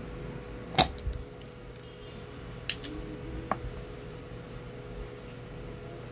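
A few sharp clicks and taps of small tools on a workbench during desoldering, the loudest about a second in, over a steady low electrical hum.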